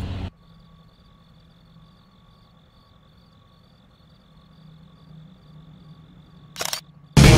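Rock music cuts off, leaving faint, steady insect chirring over a low hum. A short sharp noise comes about six and a half seconds in, and rock music starts again just before the end.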